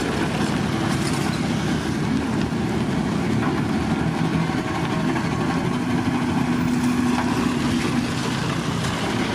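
Diesel engine of heavy road-construction machinery running steadily, a deep rumble with a pitched engine note.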